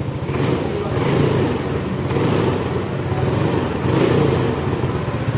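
Yamaha NMAX scooter's single-cylinder four-stroke engine idling steadily through its stock muffler, rewelded after being drilled out; the note is a little dry and crisp but not noisy. A slight leak puffs at the exhaust gasket, which the mechanic suspects.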